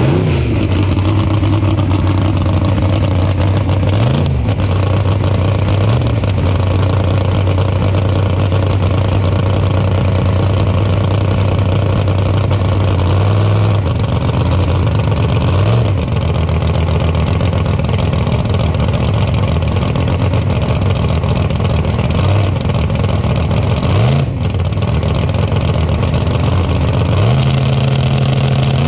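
1963 Ford Falcon drag car's engine running loud just after start-up, idling with several short throttle blips that rise and fall, then held at a higher steady speed near the end.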